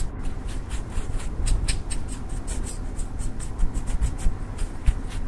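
Pressed pink makeup powder being scraped and crumbled out of its small metal pan with a tool, over a glass plate: an irregular run of sharp ticks and scratches, several a second, over a low rumble.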